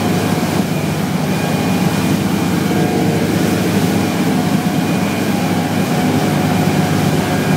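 Motor yacht under way: a loud, steady engine drone mixed with the rush of wind and water.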